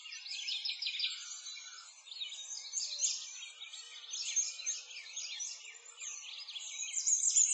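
Many small birds chirping at once: a dense, unbroken chorus of quick, high, overlapping calls.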